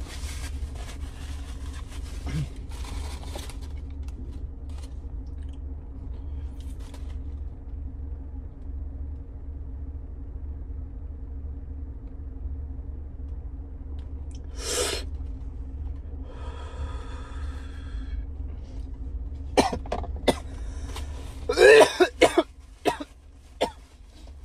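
A man coughing: a single cough about halfway through, then a throat-clearing sound, then a run of hard, loud coughs near the end. A paper food wrapper crinkles at the start, over a steady low hum.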